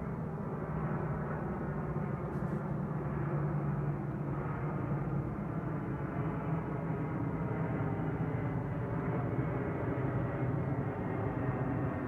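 Airplane engine noise, a steady rumble without change across the few seconds.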